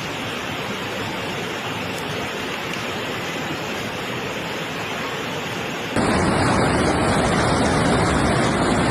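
Steady rushing of floodwater. It gets louder and fuller after an abrupt cut about six seconds in.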